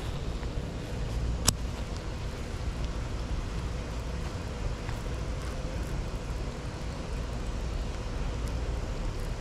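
Steady low outdoor rumble, with one sharp click about a second and a half in.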